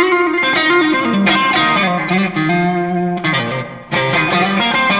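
Fender Stratocaster Deluxe Roadhouse electric guitar on its neck pickup with the S-1 switch engaged, played direct through a Valeton GP100 multi-effects unit. It plays a lead line of picked single notes, holds and bends one note near the middle, and breaks off briefly a little before the end.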